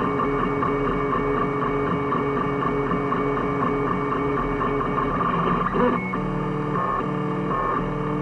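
3D printer's stepper motors whining as the print head moves. The pitch holds steady through each move and jumps to a new note whenever the speed or direction changes, switching quickly from about six seconds in.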